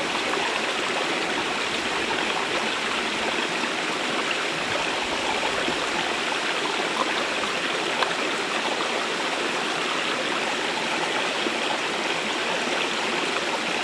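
A shallow, rocky stream flowing over and between stones, a steady, even rush of water.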